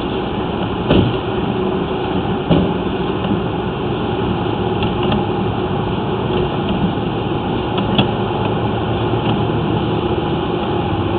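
An engine running steadily at idle, with a few faint clicks.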